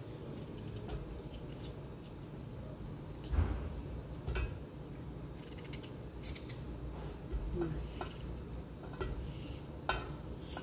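Kitchen knife peeling a potato by hand: scattered light scrapes and clicks of the blade cutting the skin, with a louder knock about three seconds in.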